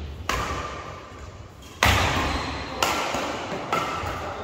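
Badminton rackets striking the shuttlecock in a fast doubles rally: four sharp hits, the loudest about two seconds in, each ringing out in the hall's echo.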